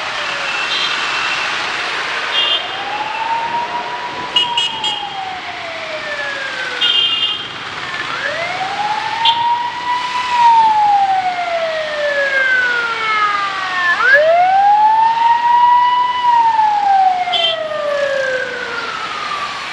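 Emergency vehicle siren wailing, sweeping up, holding and sliding back down about every five to six seconds, with short high beeps in between.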